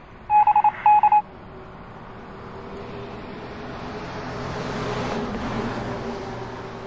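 Two quick runs of short electronic beeps about half a second in. They are followed by a rush of noise that swells to a peak about five seconds in and then fades.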